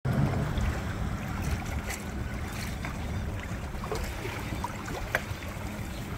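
Wind buffeting the microphone in a low steady rumble, with choppy water lapping against a small sailboat's hull and a few light clicks and splashes, one sharper a little after five seconds in.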